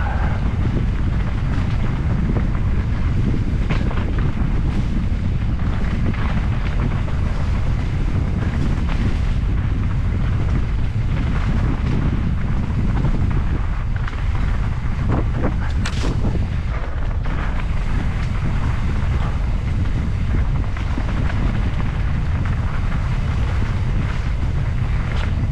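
Steady, heavy low rumble of wind buffeting an action camera's microphone while riding along a dirt trail. A few sharp knocks come about fifteen to sixteen seconds in.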